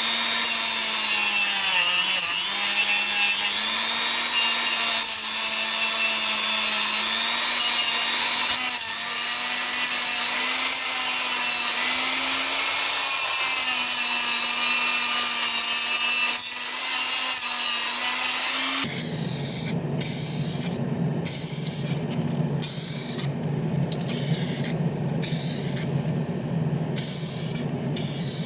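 A small electric power tool running steadily, its pitch dipping slightly now and then under load. About nineteen seconds in it cuts abruptly to a spray hissing in short on-off bursts.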